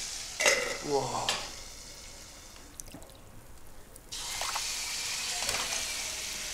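Crushed garlic sizzling in hot buffalo ghee in a pan, an even hiss. The sizzle thins out for a moment and comes back suddenly about four seconds in, then holds steady.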